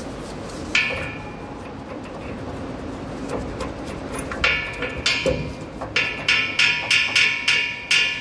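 Metal-on-metal clinks and taps that ring briefly: a hand tool knocking against the pipe fittings and valve block of a train's brake dump valve. There is one strike about a second in and a few more around the middle, then a quick run of about three a second near the end.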